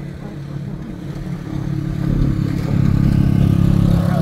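Vehicle engine running as it drives slowly over a rough dirt road, with the engine growing louder about two seconds in as it takes more throttle.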